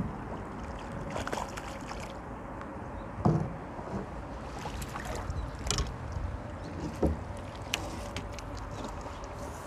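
Water splashing and sloshing from a hooked crucian carp being played toward the pier on a float rod, with several short sharp splashes or knocks. The loudest comes about a third of the way in.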